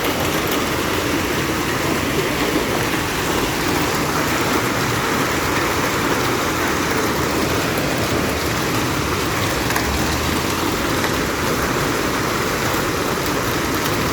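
Heavy hailstorm with rain: a dense, steady downpour of hailstones and water hitting the ground and surfaces.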